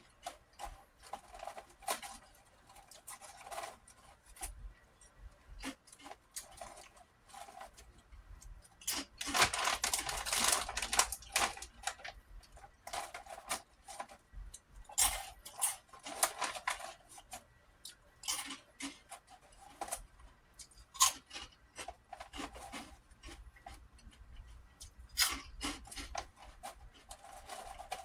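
Close-up crunching and chewing of prawn crackers, in many short irregular crackles. About nine seconds in comes a couple of seconds of denser crinkling, like the plastic snack bag being handled.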